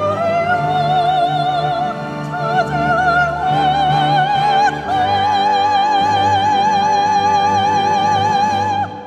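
A soprano singing in operatic style with wide vibrato over instrumental accompaniment, rising to a long held high note that cuts off near the end.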